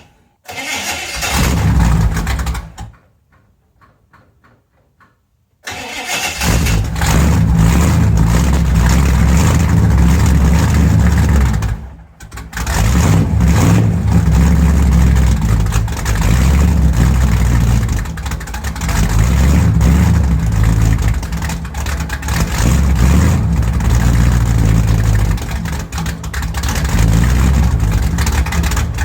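1967 Chevrolet Chevelle Malibu V8 cold-started: it runs briefly, falls quiet for about three seconds, fires up again and runs with a deep, choppy idle, dropping out for a moment about twelve seconds in before catching again. It then keeps running with its loudness rising and falling as the throttle is blipped.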